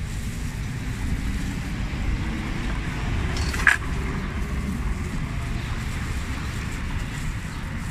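Steady low rumble of street traffic, with one short sharp sound about three and a half seconds in.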